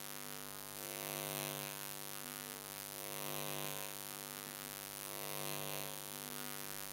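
Steady electrical mains hum, with the faint scratching of chalk writing on a blackboard coming in three short spells.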